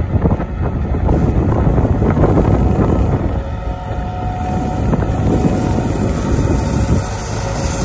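Tractor driving past at working speed with a mounted fertiliser spreader, its engine running steadily, mixed with rumbling wind noise on the microphone.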